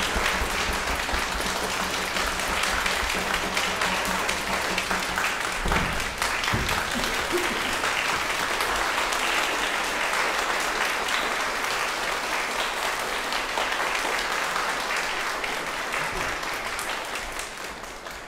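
Audience applauding steadily after a concert, fading out near the end.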